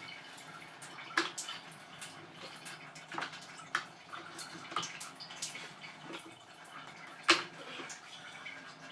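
Water running and dripping inside an LG WW140NP RO water purifier, with several sharp plastic clicks and knocks as its tubing and push-fit connectors at the filters are handled; the loudest knock comes late on.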